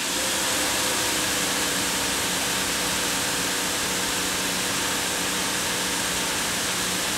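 Teande electric pressure washer running under load with the trigger held: a steady hiss of water spraying from a 40-degree nozzle over the hum of the electric motor and pump, which sets in at the start. The system is holding about 1300–1400 PSI of working pressure.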